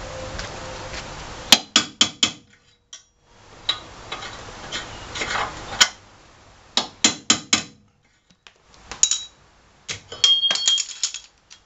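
Hammer striking a transfer punch against a steel backup plate bolted to a truck's hitch frame, marking where the holes will be drilled: sharp metallic taps, a few at a time in short runs of about four.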